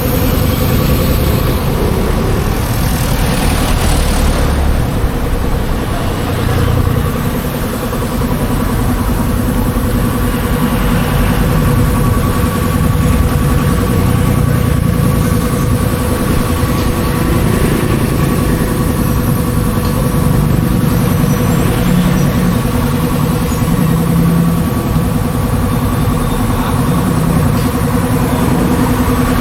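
An engine idling steadily: a constant low rumble with an unchanging hum that holds for the whole stretch.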